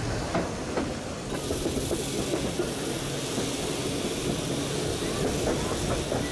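Vintage electric tram running along its track, heard from its open top deck: a steady rumble of steel wheels on rail with a few faint clicks, and a brighter hiss coming in just over a second in.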